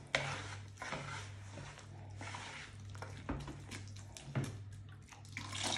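Wire whisk beating thick semolina batter for baghrir in a plastic bowl, in quick irregular scraping strokes, over a steady low hum.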